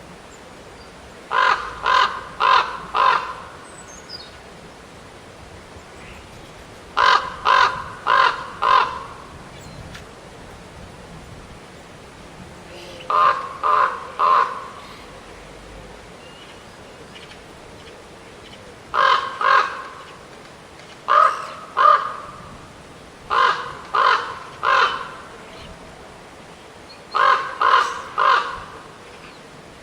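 A corvid calling harsh caws in bouts of two to four, with about six seconds between bouts.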